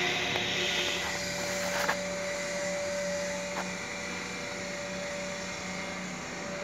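Steady machine hum with a constant whining tone over a noisy rush, with a couple of faint clicks.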